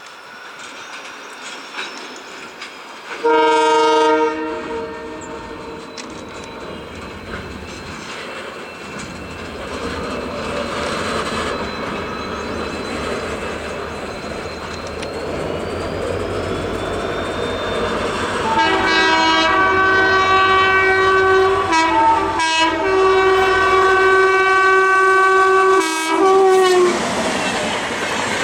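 WAP7 electric locomotive's triple-tone horn: a short blast about three seconds in, then a long blast with two brief breaks from about two-thirds of the way through, dropping in pitch as it ends. Under it the running noise of the approaching express train grows steadily louder.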